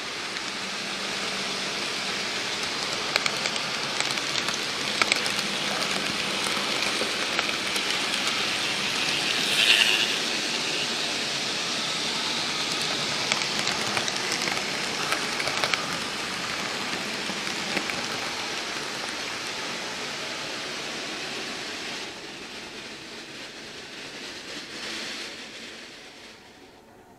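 Model railway train running on its track, heard from a camera riding on it: a steady rushing hiss of wheels on rail with frequent clicks over rail joints and points. It fades away over the last few seconds as the train comes to a stop.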